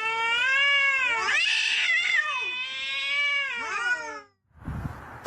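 Cat yowling: one long, drawn-out caterwaul that wavers up and down in pitch for about four seconds, the hostile yowl of a cat squaring off at another animal through a glass pane. It cuts off suddenly, followed by a short burst of noise near the end.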